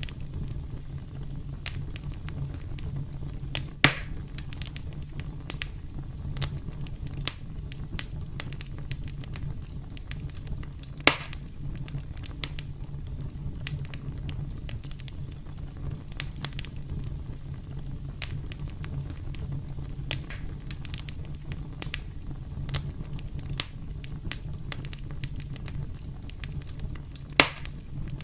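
Campfire crackling: a steady stream of small snaps over a low, even rumble, with three louder pops spread through it.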